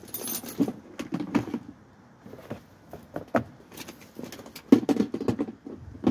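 Rummaging through tools and small objects, with clusters of clattering and knocking in the first second or so and again, loudest, about four to five seconds in.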